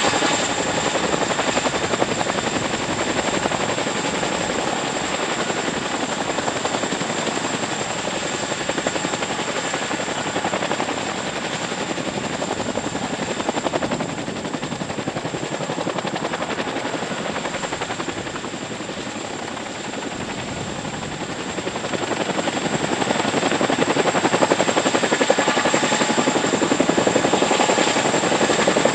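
Two CH-47 Chinook tandem-rotor helicopters hovering close by: steady, dense rotor and engine noise with a steady high whine. It eases off a little past the middle and grows louder over the last few seconds as the nearer Chinook, its slung load set down, lifts away.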